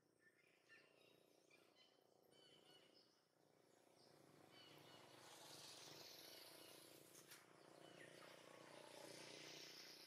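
Near silence: faint outdoor ambience, with a few faint bird chirps in the first few seconds, then a soft, even hiss that swells in the second half.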